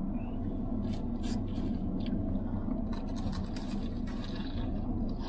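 Steady low hum inside a parked car's cabin. Over it come short crinkles of a plastic wrapper and crackly bites into a fried mango pie, about one second in and again from about three to four seconds in.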